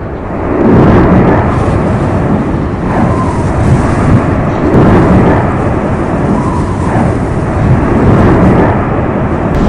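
Erupting Cumbre Vieja volcano on La Palma: a continuous deep rumble that swells about every two seconds.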